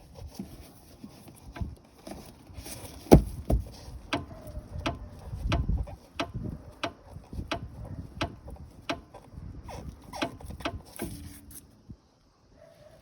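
Irregular knocks and clicks, about one or two a second, from the suspension of a Suzuki MR Wagon (MG33S): the noise of a worn, sagging strut upper mount. The loudest knock comes about three seconds in, and the knocking stops about a second before the end.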